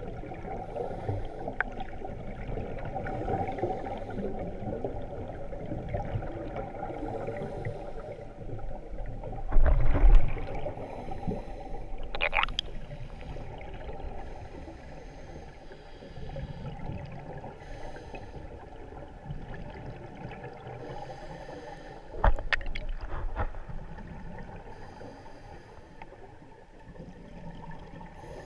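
Underwater sound heard through a camera housing: a steady muffled rumble of the water. A scuba diver's regulator exhales in two loud bubble bursts, about ten seconds in and again about twenty-two seconds in.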